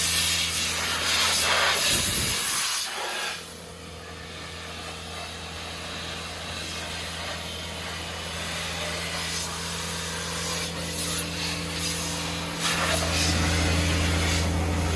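Compressed air hissing from an air hose blowing dust and chaff off a baler for the first few seconds, then dropping away, over the steady low hum of an engine running; the hum grows louder near the end.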